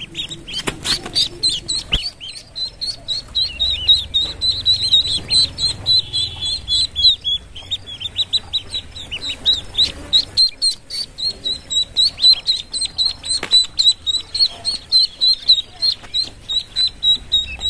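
Ducklings peeping in a steady stream of short, high calls, several a second, with a few knocks in the first couple of seconds.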